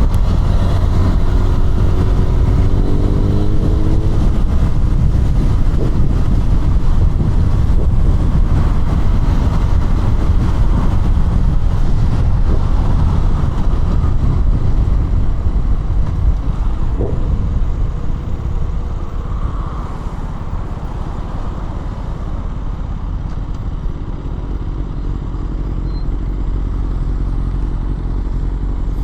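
KTM Duke 200's single-cylinder engine running under way, with heavy low rumble throughout. The engine note climbs in pitch in the first few seconds, and the sound eases off somewhat past the midpoint.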